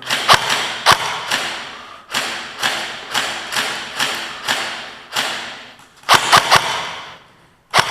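Airsoft gun fired shot by shot in a steady string, about two shots a second, each crack trailing off in the echo of a large hard-walled space, with a short gap near the end before one last shot.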